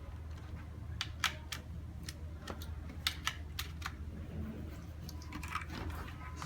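Keys pressed one at a time on an RGB backlit mechanical keyboard: about a dozen sharp, irregularly spaced clicks over a low steady hum.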